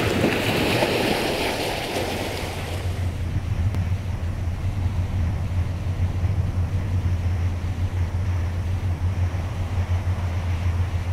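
Wind and lapping water for the first couple of seconds. After that, a steady low drone with a quick fluttering beat comes from the passing gas tanker's engine.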